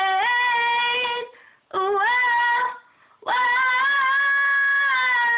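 A girl singing unaccompanied, holding out long steady notes on the final word "rain", with two short pauses for breath.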